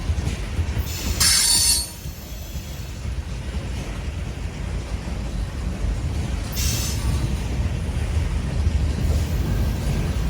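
Freight train cars rolling by with a steady low rumble. Wheels squeal sharply about a second in, the loudest moment, and again more briefly around six and a half seconds in.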